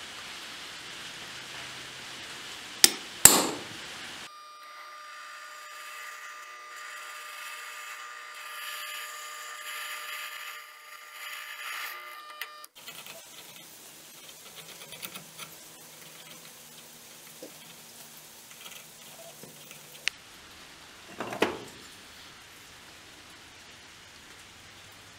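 Two sharp hammer strikes on a center punch, marking steel on an anvil, about three seconds in. Then a drill press runs with a steady whine as its bit cuts through the steel bar, throwing curled swarf. After that, fainter clicks and handling of the sword's handle parts, with a short clatter near the end.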